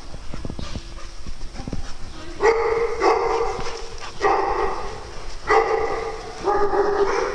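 A dog barking, five drawn-out barks about a second apart starting about two seconds in, after a stretch of light tapping and scuffling.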